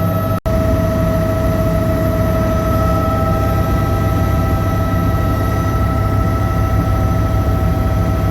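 Noisy helicopter cabin: the engine and rotors drone steadily under a constant whine. The sound cuts out for an instant about half a second in.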